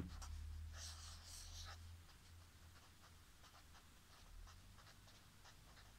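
Marker pen writing and drawing on paper: faint scratching strokes, clearest about a second in, then lighter strokes, over a faint low hum.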